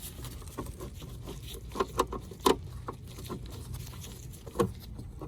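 Irregular small clicks and taps of a Phillips screwdriver working out the lower screw that holds a taillight assembly, over a low steady hum.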